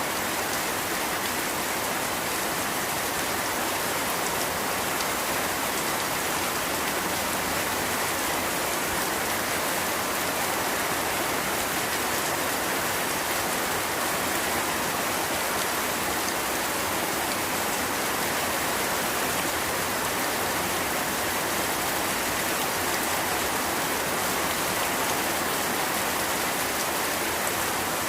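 Steady rain falling, an even unbroken hiss of drops with no change in strength.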